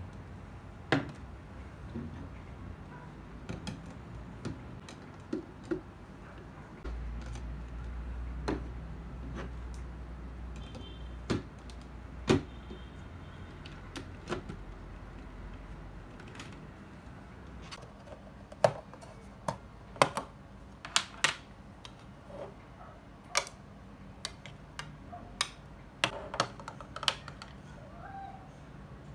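Plastic clicks and knocks of a Simplus 3-in-1 blender's parts being handled: bowls and the blender jug lifted off, fitted onto the motor base and set down on a table. Scattered sharp taps that come more often in the second half.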